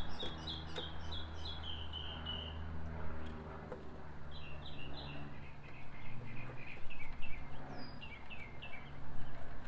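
A bird chirping in quick runs of short notes, each run stepping down in pitch, repeated several times, over a steady low hum and a few faint clicks.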